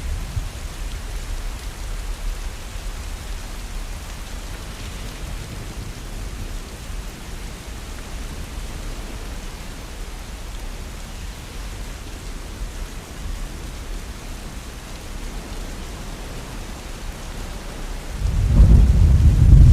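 Steady rain falling, with thunder: a low rumble dies away over the first couple of seconds, the rain runs on alone, and a loud rumble of thunder swells up near the end.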